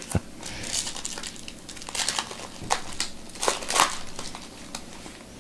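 Foil wrapper of a Bowman Chrome baseball card pack crinkling in the hands as the pack is opened and the cards are slid out, a run of irregular crackles that thins out near the end.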